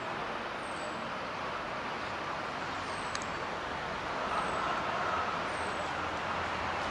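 Steady rumble of road traffic going by, swelling about four seconds in as a vehicle passes. Faint, short, high chirps falling in pitch repeat about once a second over it.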